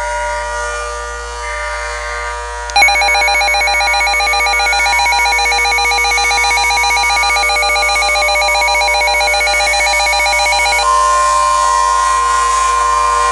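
Electronic alert tones of an Emergency Alert System broadcast. About three seconds in, a rapidly pulsing ringing tone starts and lasts about eight seconds. A single steady tone then follows near the end.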